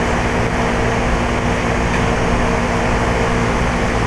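2003 Carrier TECH2000 4-ton heat pump outdoor unit running steadily in heating mode just after a defrost cycle: even fan noise over a steady low hum.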